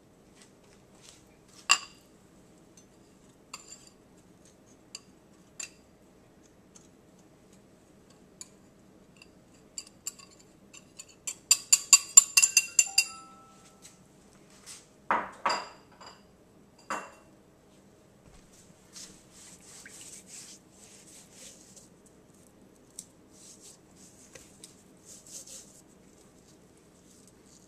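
Kitchen utensils clinking against a dish as brown sugar and spice rub go onto raw pork spare ribs: scattered small clicks, then a quick run of ringing clinks about halfway through, two duller knocks, and soft rustling as the seasoning is sprinkled and rubbed into the meat by hand.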